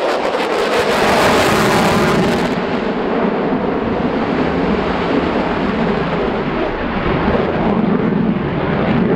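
Loud jet engine noise from a military fighter jet making a low pass. A hissing top end cuts out about two and a half seconds in, leaving a steady, duller rush.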